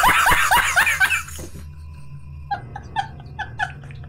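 A man laughing hard: a loud run of rapid ha-ha bursts for the first second and a half. After a brief lull comes a string of short, high-pitched squeaky laugh pulses, about four a second.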